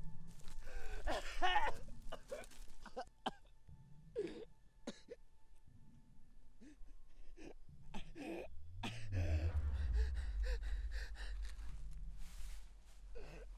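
A man gasping and groaning in pain, in short, strained breaths with pauses between them, from injuries he has just suffered. A little past halfway, a low steady rumble swells in underneath.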